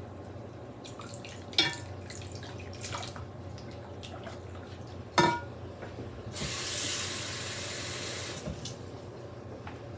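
Two sharp, ringing clinks of kitchen utensils against a pot, then a kitchen faucet running for about two seconds while a measuring cup is filled with cold water.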